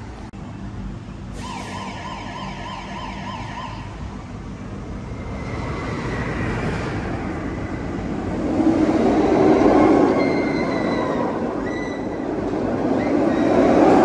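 A warbling alert tone pulses about three times a second for a couple of seconds. Then a roller coaster train rushes past with high, thin squeals, loudest about nine to ten seconds in and again near the end.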